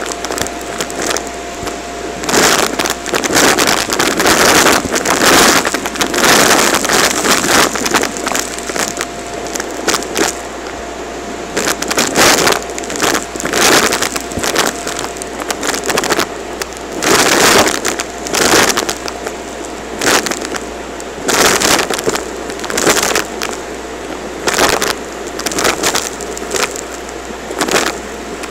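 Vacuum cleaner running with a steady whine as its floor nozzle sucks up a pile of lint and paper confetti. The debris rattles and crackles up the wand in louder surges every second or two.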